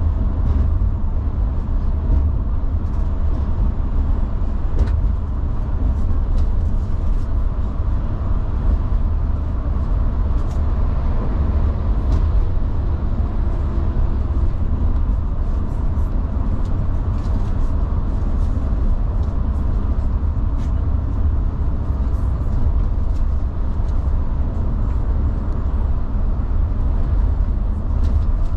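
Mercedes-Benz Travego coach cruising on the motorway, heard inside the cabin: a steady deep rumble of engine and tyre noise, with faint scattered clicks and rattles.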